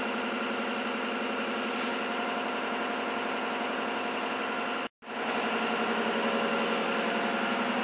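Maruti Suzuki Alto 800's 800 cc three-cylinder petrol engine idling steadily, with a momentary break in the sound about five seconds in.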